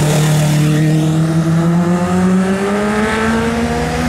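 Honda CBR sport bike's inline-four engine accelerating, its pitch rising steadily and smoothly through one gear.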